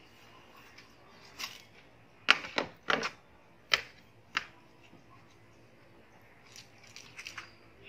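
Kitchen knives cutting into whole watermelons: a run of about six sharp cracks as the blades split the rind, clustered a couple of seconds in, then lighter ticks near the end.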